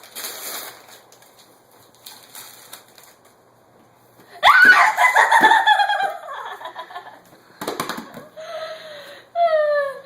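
Wrapping paper rustling softly as a present is unwrapped, then, about four seconds in, a loud high-pitched excited squeal, with more short high squealing sounds near the end.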